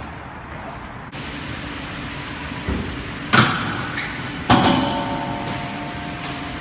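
Two sharp knocks about a second apart over steady background noise, the second followed by a metallic ring that fades over a couple of seconds.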